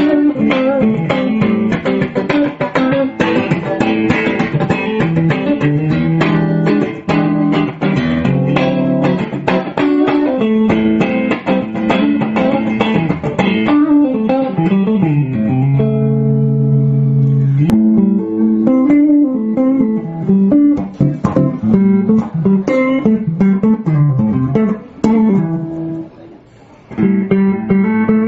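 Bacchus Handmade Series G-Player electric guitar played solo for a sound test: quick runs of picked single notes and chords, with one chord left ringing about halfway through and a short near-pause a couple of seconds before the end.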